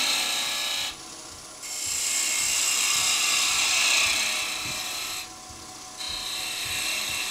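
Hand-held turning tool cutting a spinning wooden finial on a wood lathe: a steady high hiss of the cut in three passes, breaking off briefly about a second in and again around five seconds in.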